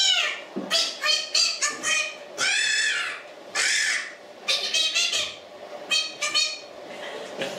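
Pulcinella's puppet voice made with a swazzle: a string of short, high-pitched squawking cries, some arching up and down in pitch, with one longer held cry about two and a half seconds in.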